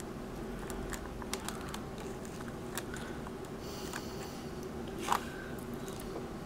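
Scattered small clicks and a faint crinkle of a thin plastic candy-kit tray being handled as set gummy candies are pushed out of their moulds, over a low steady hum.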